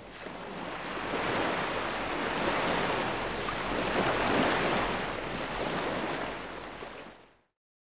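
An intro sound effect of even rushing noise with no tune. It swells in over the first second or so, holds, then fades away and stops about seven seconds in.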